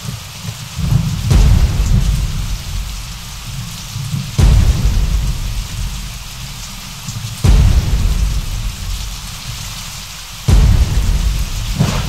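Steady heavy rain with four rolls of thunder about every three seconds, each rising or cracking in suddenly and rumbling away.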